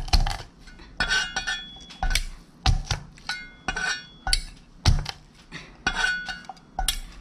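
A cleaver's flat blade smashing peeled garlic cloves against a wooden chopping board: about a dozen irregular knocks and clanks, some with a brief metallic ring from the blade.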